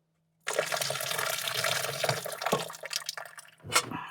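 Water running into a small sink in a steady rush for about three seconds, then a single sharp clink of a pan near the end.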